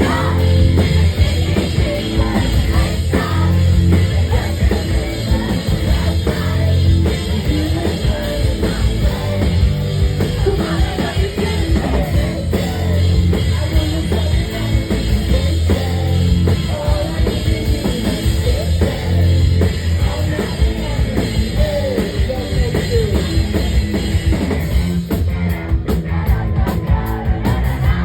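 A live band playing a rock song at full volume, with a drum kit driving a steady beat and a lead vocal singing over it.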